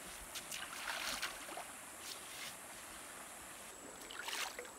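Water splashing and sloshing in shallow river water in several short bursts, over the steady rush of the river. A thin, steady high insect note comes in near the end.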